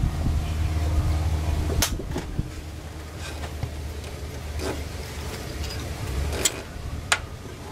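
Steady low rumble, strongest in the first couple of seconds, with about four sharp metallic clicks as parts are handled at the front of an engine stripped for a timing-belt job.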